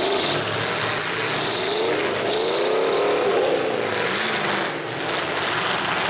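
Demolition derby cars from the 1980s class running in the arena, engines revving up and down over a constant din, with one engine rising in pitch about two seconds in and falling away again.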